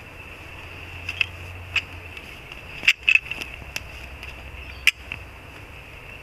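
Sharp metallic clicks and clacks from a climbing stick being handled, its cam cleat, bolts and rope knocking as it is readied to hang on a tree. There are about six clicks, with the loudest pair about three seconds in and another loud click about five seconds in.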